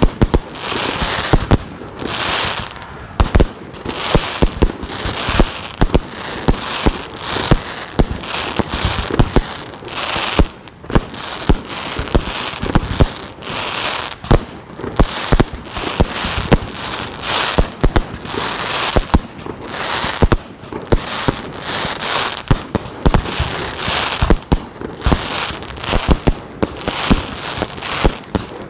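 Aerial fireworks display: a rapid, continuous barrage of bangs, several a second, each trailed by crackling and hiss from the bursting shells.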